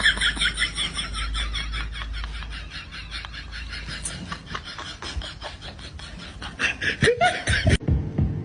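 Rapid, breathy laughter in quick even pulses, about five or six a second, which stops abruptly near the end.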